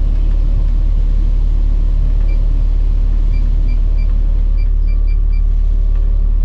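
Excavator engine running steadily with a deep low hum, heard from inside the cab. From about two seconds in comes a string of short, high electronic beeps from the cab controls.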